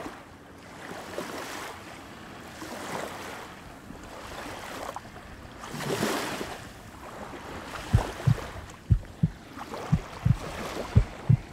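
Small waves washing against shoreline rocks, the surf swelling and fading in slow surges. About eight seconds in, a heartbeat sound effect begins: short low thumps in pairs.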